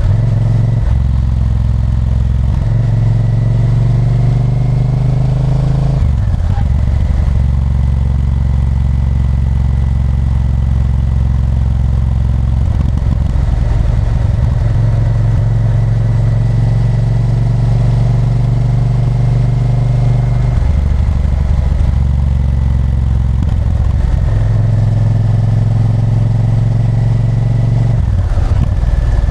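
Honda Varadero 1000's V-twin engine running under way, heard from the rider's position. The engine speed steps up and down several times as the throttle and gears change, holding steady in between.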